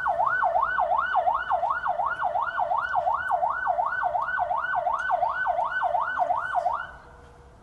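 Emergency-vehicle siren on a fast yelp, its pitch rising and falling about three times a second, cutting off suddenly near the end.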